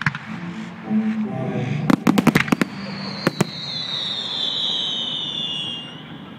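Fireworks going off over music: a quick run of sharp bangs about two seconds in, two more bangs a second later, then a long whistle that slowly falls in pitch and fades.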